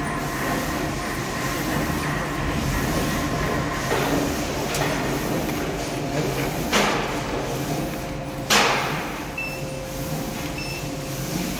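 BINBAO SCL sheet cutting machine running with a steady mechanical noise and a few faint steady tones. Four louder brief sweeps stand out about four, five, seven and eight and a half seconds in, and short high beeps repeat about once a second near the end.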